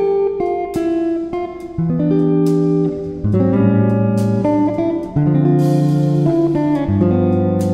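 Background instrumental music: a tune of plucked-string notes changing about every half second.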